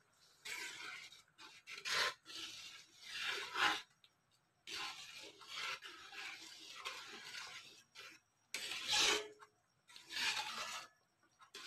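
Metal ladle stirring chocolate rice porridge in an aluminium wok, scraping along the pan in a series of strokes with short pauses between them.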